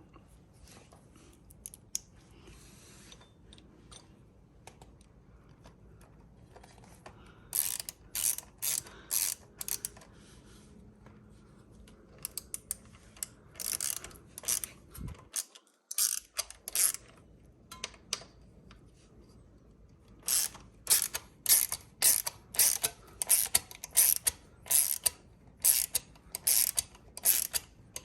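Ratchet wrench tightening the bolts of a front disc-brake caliper adapter, clicking in short repeated strokes. There are three spells of strokes: one about a quarter of the way in, one around the middle and a faster, steadier run near the end.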